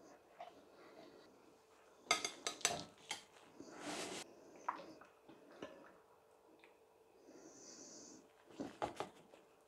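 Serving utensils clinking and scraping against a ceramic baking dish and plate as a portion of pie is lifted out: a cluster of clinks about two seconds in, a short scrape around four seconds, and more clinks near the end.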